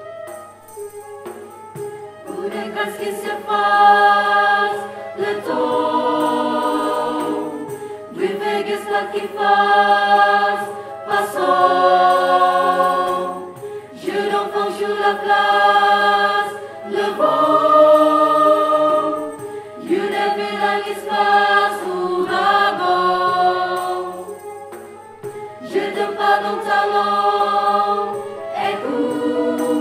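A university student choir sings sustained chords in several voice parts, phrase after phrase, each chord held for one to three seconds.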